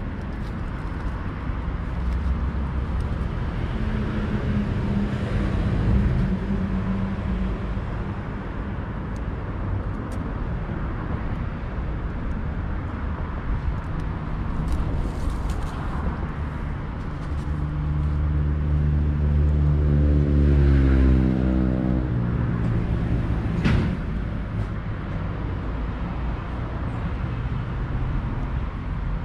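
Road traffic: vehicle engines running in a steady low rumble. About two-thirds of the way through one vehicle passes louder, its engine note dropping in pitch as it goes, and a single sharp click follows shortly after.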